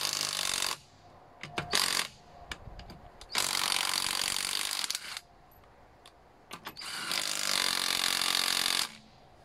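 Makita DTW190 18 V cordless impact wrench running in bursts on a car's wheel bolts: a short run at the start, a brief one about two seconds in, then two longer runs of about one and a half to two seconds each.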